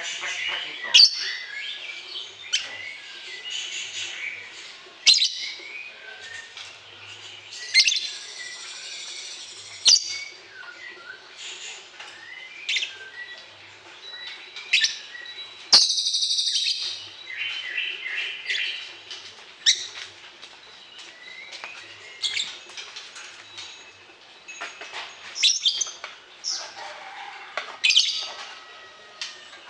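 Birds chirping and calling: a series of short, sharp, high chirps and trills, with one louder, longer, buzzy high call about halfway through.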